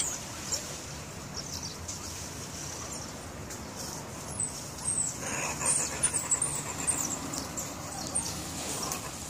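High-pitched chirping and twittering calls from a group of mongooses, short chirps in quick runs at the start and again through the middle.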